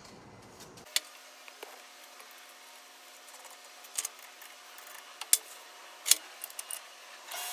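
Scattered sharp metallic clicks and taps of tools being handled at a metal lathe while the center drill is set back in. A steady motor hum comes in near the end as the lathe starts.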